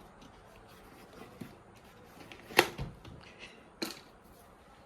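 Scissors cutting open packaging, with light rustling and two sharp snips, the louder one about two and a half seconds in and the other about a second later.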